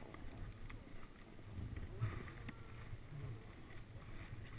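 Snowboard sliding and scraping over snow, heard as a steady low rumble through a helmet-mounted camera.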